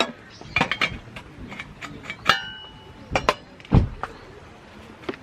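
Cookware and tableware clinking and knocking as it is handled: a few separate strikes, one a ringing metallic or glassy clink a little over two seconds in, then a heavier low thump near the end.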